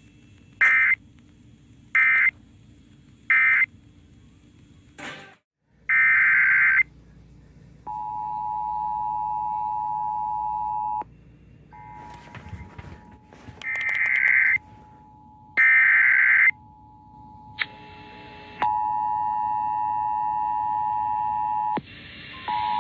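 Emergency Alert System signalling tones. First come three short SAME data bursts about a second and a half apart, the end-of-message code closing one alert. Then a longer data burst and about three seconds of the steady two-tone attention signal, followed by two more data bursts and the two-tone attention signal again, opening the next alert.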